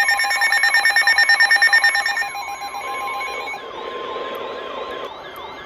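Electronic emergency alert tones: rapid pulsing beeps at several pitches for about the first two seconds, then a warbling tone that sweeps up and down over and over, with a steady tone beneath it for part of the time.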